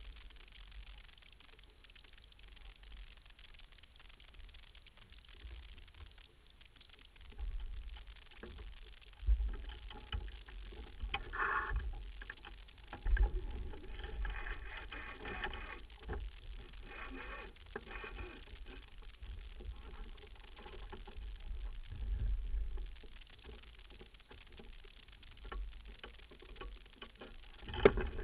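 Wind buffeting the microphone with water washing along the hull of a sailboat under way, gusting louder from about seven seconds in, with a sharp knock near the end.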